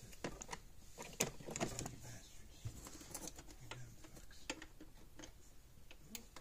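Faint, irregular clicks and taps of a hand working the push-and-turn fuse holder on a solid-state electric fence charger. The loose fuse mount makes the charger cut in and out.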